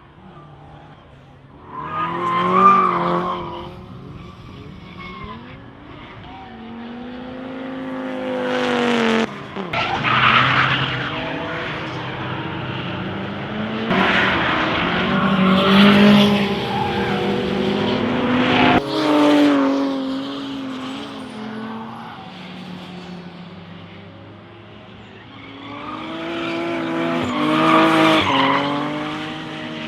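Race cars running hard past on track, engines revving up and falling away, with tyres squealing as they slide. There are several separate passes, the loudest about two seconds in, in the middle, and near the end.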